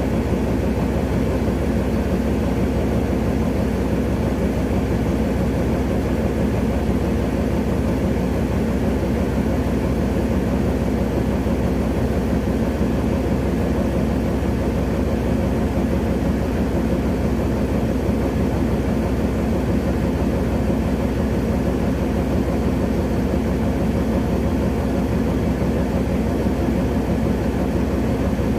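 Diesel engine of an LP-19 tracked feller-buncher running steadily, a low even drone that holds the same speed throughout.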